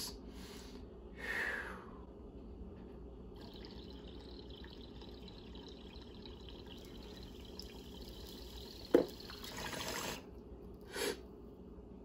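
Water in a glass beaker bong bubbling faintly and steadily for about seven seconds as a long hit is drawn through it, with a sharp click about nine seconds in as the bowl is pulled to clear the chamber.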